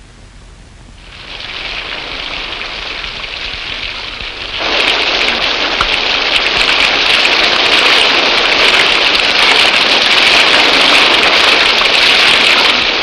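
Heavy rain falling, a steady hiss that swells about a second in and grows louder again about four and a half seconds in.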